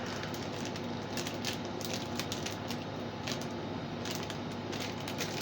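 Plastic wrapper of a banana choco pie crinkling as it is handled and opened: irregular crackles over a steady low hum.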